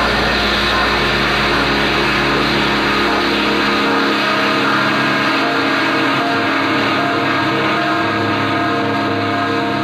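Background music: a dense, sustained post-rock wash of held guitar-like tones, with a deep bass drone that drops out about four seconds in.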